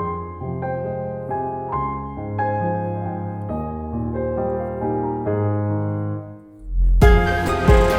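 Background piano music, slow single notes and chords. Near the end it dips briefly and gives way to a fuller music track with a beat.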